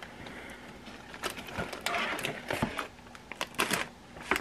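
Paper and cardboard fast-food packaging being handled, rustling and crinkling in short, irregular scratchy bursts with small clicks.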